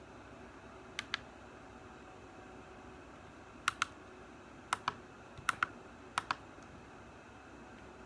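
Short, sharp plastic clicks, mostly in close pairs, five times over a faint background, from hands working a small plastic puzzle or its parts.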